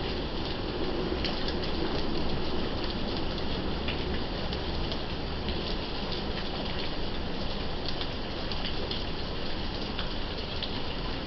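Steady heavy rain falling, with scattered individual drops ticking sharply among the even hiss.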